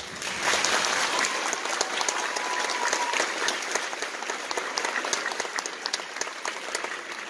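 Audience applauding, starting all at once, loudest in the first second and slowly tapering off.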